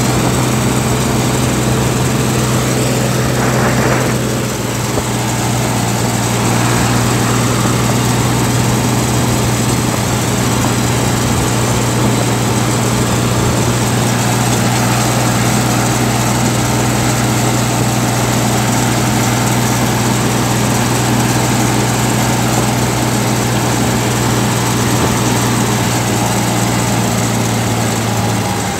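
Ford 3000 tractor engine running steadily under way on a road, with an even, unchanging hum. A brief rush of noise comes through about four seconds in.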